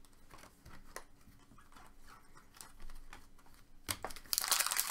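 Small clicks and taps of trading cards being handled. About four seconds in, a foil card pack starts crinkling noisily as it is torn open.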